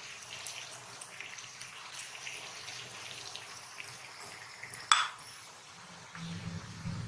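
Small wood fire crackling and hissing under a miniature clay pot of water, then a single sharp clink just under five seconds in as a clay lid is set on the clay pot.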